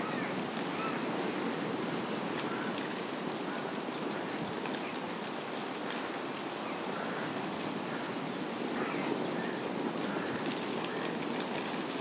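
Steady rushing outdoor background noise with a few faint, short high chirps scattered through it.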